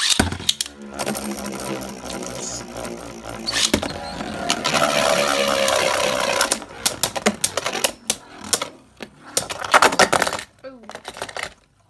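Two Beyblade Burst spinning tops launched together into a plastic stadium. They spin and grind against the stadium floor and each other with a dense rattle for the first several seconds, then clash in a string of sharp clicks and knocks toward the end.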